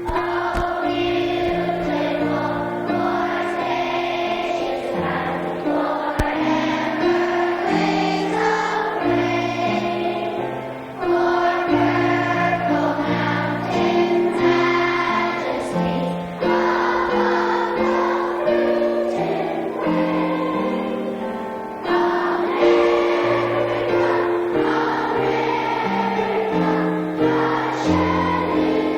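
Group of children singing a song together to piano accompaniment, in phrases with short breaks between them.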